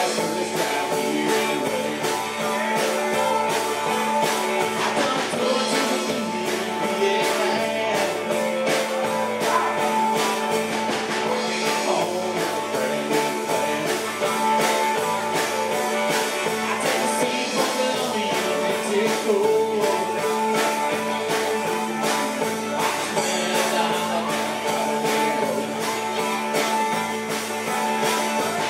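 Live country-rock band playing: electric guitars, bass and a drum kit keeping a steady beat, with a singer.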